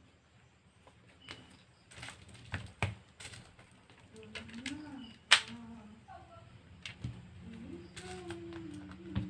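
Irregular clicks and taps of a smartphone and small tools being handled on a repair bench, the loudest sharp click about five seconds in.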